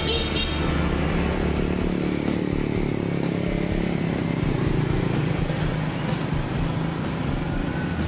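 Motor vehicle engine running steadily, a low hum whose pitch drifts a little up and down.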